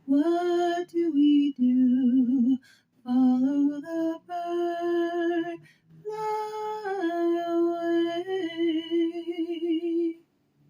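A woman singing alone, unaccompanied, in slow phrases of long held notes with vibrato. The singing stops about ten seconds in.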